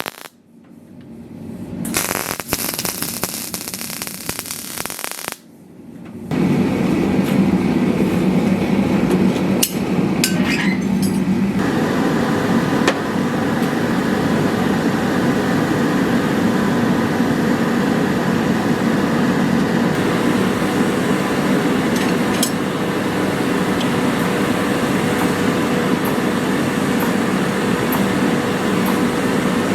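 Short stretches of shifting noise, then from about six seconds a steady, loud mechanical running noise with a low hum and a faint steady tone, marked by a few sharp metallic clinks.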